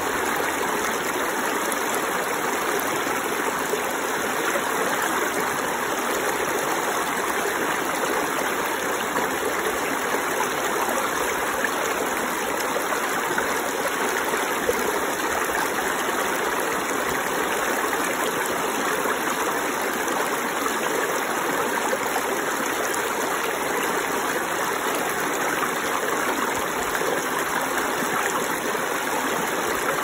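Shallow rocky stream running and spilling over a low rock ledge into a pool, a steady splashing water sound.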